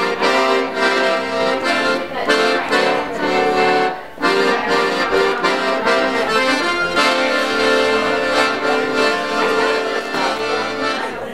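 A piano accordion playing a tune, with several notes sounding together, and a brief break about four seconds in.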